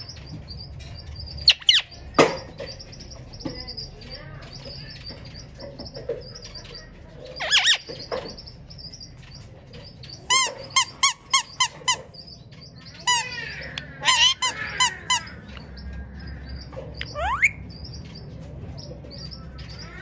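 Indian ringneck (rose-ringed) parakeet calling in short, sharp bursts: single calls early on, then a quick run of about six calls near the middle and another cluster after it, with one rising call near the end. Constant faint high twittering underneath.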